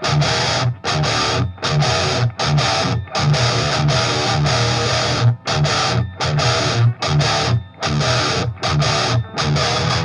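Distorted electric guitar played through a Line 6 Helix modeler, a heavy chugging riff broken by short, sharp stops about every half second to second.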